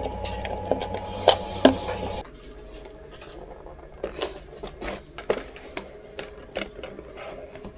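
Small hard objects being handled, with scattered light clicks and clatter. A steady hum runs under the first two seconds and cuts off suddenly.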